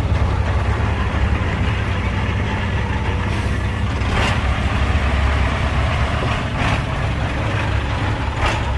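Heavy diesel machinery engine running steadily with a low drone.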